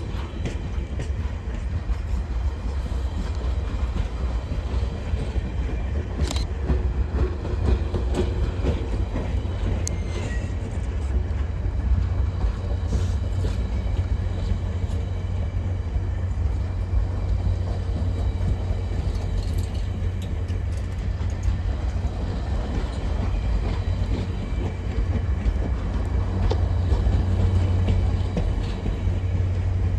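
A train running past, a steady low rumble with scattered sharp clicks, growing a little louder near the end.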